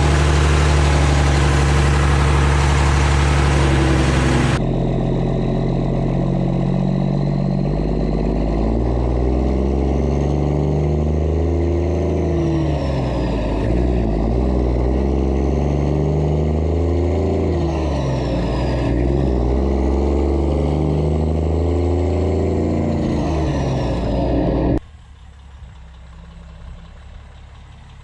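Heavy truck engine running, with its pitch rising and falling several times as it accelerates. The sound changes abruptly a few seconds in and drops to a much quieter level near the end.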